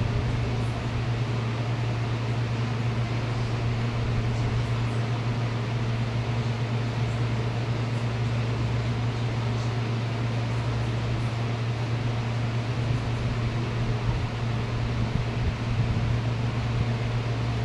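Steady low motor hum over an even rushing noise, unchanging throughout: a running electric fan.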